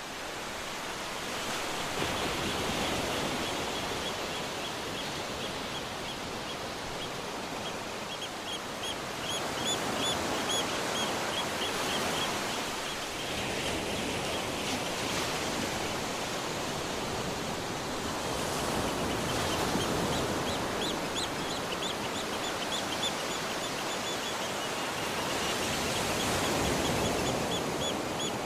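Surf washing on a beach, swelling and ebbing every several seconds, with birds calling in rapid runs of short, high notes from about a third of the way in.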